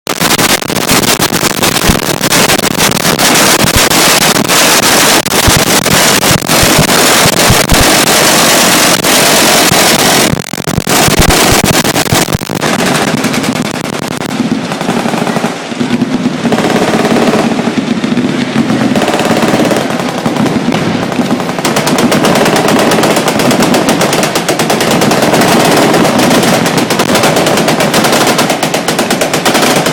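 Machine guns firing long automatic bursts, the shots running together in a dense rattle. There is a short break about ten seconds in, and the firing thins for several seconds after.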